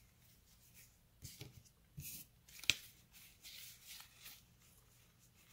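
Faint rustling and soft clicks of Epic Card Game cards being leafed through by hand, one card slid past another at a time, with one sharper snap a little after the middle.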